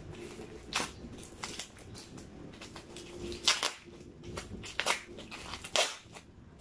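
Crinkling and rustling of a clear plastic bag of balloons being opened and handled, in several short bursts.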